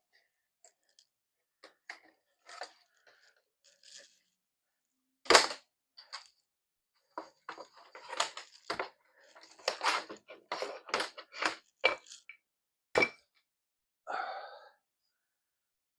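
Plastic slot-car track pieces being handled and fitted: scattered clicks, knocks and rustling, with a sharp knock about five seconds in, a busy stretch of clatter in the middle and another sharp knock near the end.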